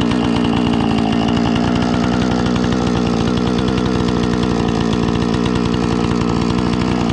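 Chainsaw engine running loud and steady at a constant speed, with no revving up or down.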